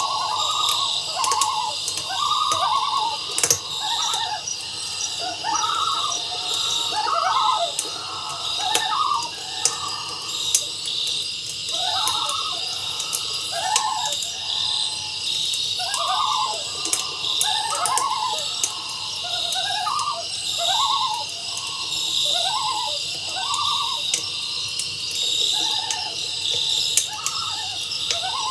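Outdoor nature ambience: many short animal calls overlapping, several a second, over a steady high-pitched drone.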